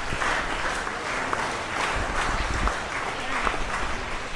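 Audience of students applauding, with voices murmuring underneath.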